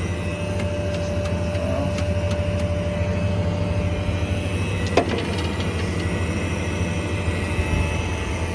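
A 6.0 Power Stroke diesel running steadily at idle, with a constant low hum and a steady higher whine over it. There is a single sharp click about five seconds in.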